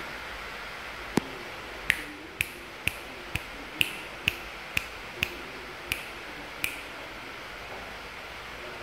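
A run of about a dozen sharp clicks, roughly two a second, each with a brief ring, stopping after about six and a half seconds.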